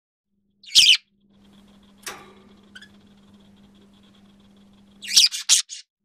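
Male budgerigar giving short, high, squeaky falsetto calls: one about a second in, a softer one around two seconds, then a quick run of three or four near the end.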